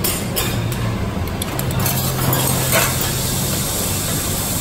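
Oil sizzling steadily on a hot steel teppanyaki griddle over a low hum, with a few light metal clinks in the first second or so. Near three seconds in, the sizzle flares briefly as chopped ingredients hit the oiled plate.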